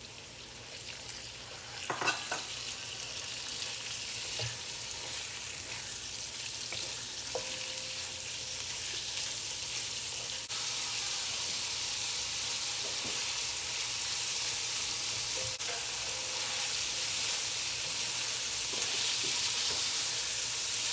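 Chicken fillet pieces sizzling in hot oil with sautéed garlic and onion, the sizzle starting suddenly as the meat goes in and growing stronger. A utensil clatters against the pan about two seconds in, followed by lighter clicks of stirring.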